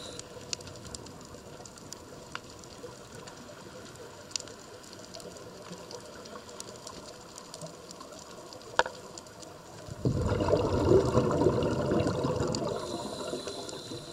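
A scuba diver's breathing: a burst of exhaled bubbles from the regulator about ten seconds in, lasting two or three seconds, then the thin hiss of the next inhalation near the end. Before the exhale there is only quiet underwater background with a few faint clicks.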